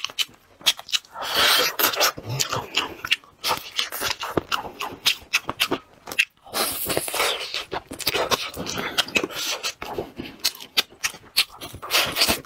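Close-miked mouth sounds of gnawing on a braised sheep's leg bone: wet smacking and clicking, with a few longer hissing stretches of sucking at the meat on the bone.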